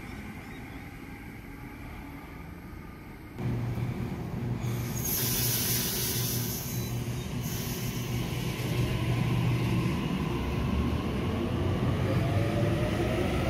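Sydney Trains double-deck electric train: a quieter approach, then, after a sudden jump in level, the train running close past the platform with a steady low hum of its motors and wheels. A hiss comes about halfway through, and a rising motor whine in the last few seconds as it gathers speed.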